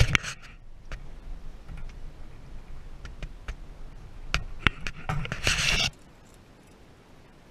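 Handling noise in a small boat while a caught northern pike is held: scraping and rubbing with several sharp knocks, and loud rustling bursts at the start and about five seconds in that cut off abruptly.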